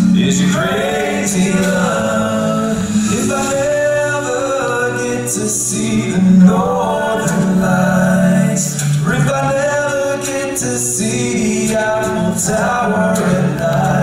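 Five-man a cappella vocal group singing live: close male harmonies over a sustained low bass voice, with no instruments.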